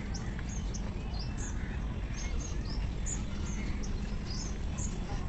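Small birds chirping: many short, high calls, several a second, over a steady low rumble.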